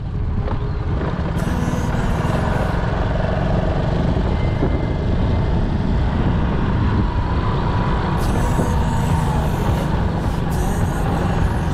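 Motorcycle engine running steadily while the bike is ridden along at a constant pace.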